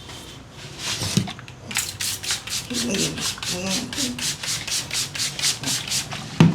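Hands rubbing briskly through hair and over the scalp in a head massage, a fast run of rasping strokes about four or five a second. One sharp thump near the end is the loudest sound.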